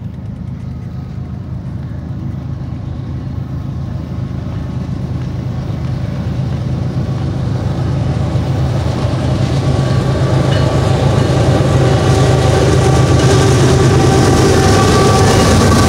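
A lash-up of four Union Pacific GE diesel-electric locomotives, led by a C45ACCTE, approaching at speed at the head of a long freight train. A steady low engine drone grows louder as the units draw near, with wheel and rail noise rising alongside it.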